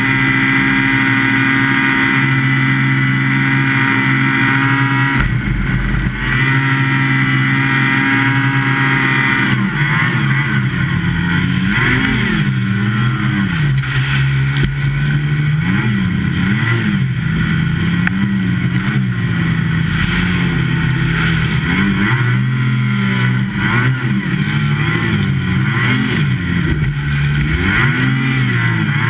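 A snow machine's engine running hard through deep powder snow. It holds a steady pitch for the first few seconds, then revs up and down repeatedly, rising and falling every second or two as the throttle works against the snow.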